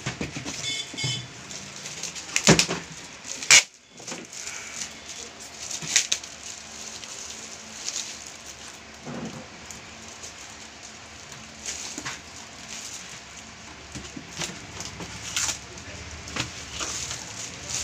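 Clear plastic wrapping crinkling and rustling as a DVR recorder is handled in its bag and lifted out of a cardboard box. Scattered sharp crackles, the loudest pair about two and a half and three and a half seconds in.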